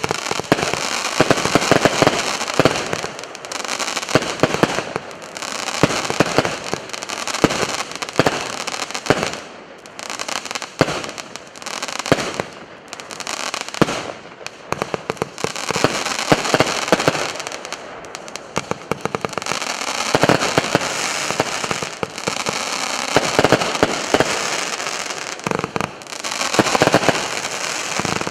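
Consumer firework, the "Heavenly Spheres" (Небесные сферы), going off: dense crackling packed with sharp pops that swells and eases in waves every few seconds.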